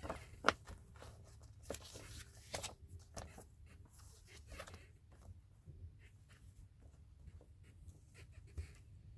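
Faint handling noises: a few light knocks and clicks with soft rustling as items are moved about and set down on a surface.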